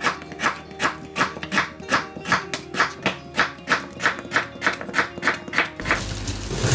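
Background music with plucked guitar over a steady beat of about three strokes a second. Near the end it gives way to a few irregular knife strokes on a plastic cutting board.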